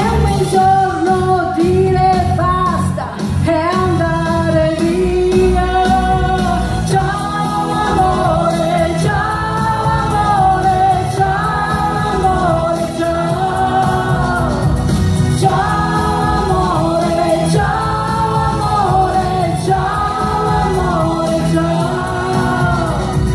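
A live band plays while a singer sings in phrases of long held notes over a steady bass and keyboard accompaniment.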